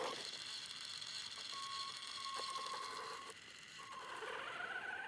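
Small electric motor and gearbox of a radio-controlled crawler whining steadily. It eases off briefly a little past three seconds, then picks up again at a higher pitch.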